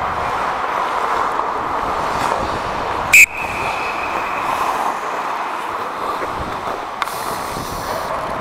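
Ice hockey play heard from the ice: a steady wash of skate and ice noise, with one sharp, loud metallic hit about three seconds in that rings on in a single tone for over a second.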